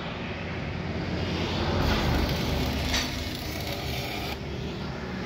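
Stick (arc) welding on a tractor engine housing: the electrode's arc crackling steadily, with a low rumble swelling under it around the middle.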